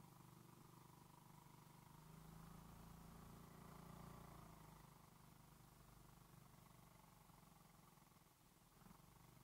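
Near silence with a faint, steady low motor hum that swells slightly a few seconds in.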